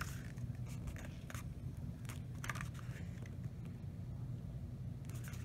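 Faint scattered taps and rustles of a hardcover book's pages being handled and turned around, over a low steady hum.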